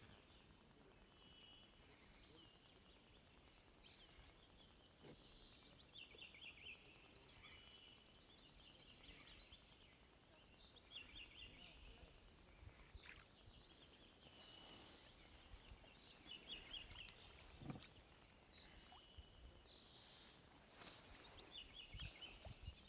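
Faint birdsong: short trilled phrases repeated every second or two, with a few brief clicks in between.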